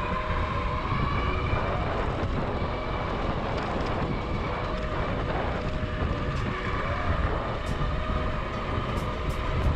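UBCO 2x2 electric motorcycle riding along a dirt trail: a thin whine from its hub motors that drifts slightly with speed, over steady rumble of wind on the microphone and tyres on the dirt.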